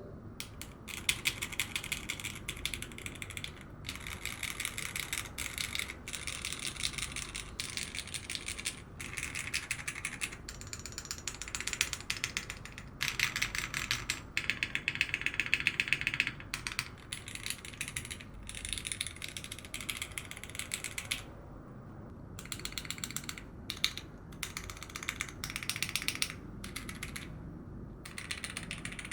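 Typing sound test on a mechanical keyboard fitted with KeyTok PBT keycaps: fast runs of key clacks, broken by short pauses every few seconds.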